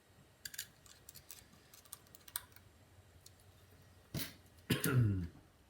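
Light, sharp clicks and taps of small screws and PC parts being handled, scattered over the first couple of seconds. About four seconds in, a short wordless voice sound is the loudest thing heard.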